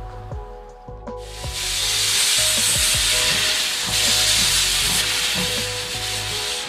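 Loud, steady hiss of steam blasting from the cylinder drain cocks of a Ty2-class (German BR 52 'Kriegslok') 2-10-0 steam locomotive, starting about a second in, heard over background music.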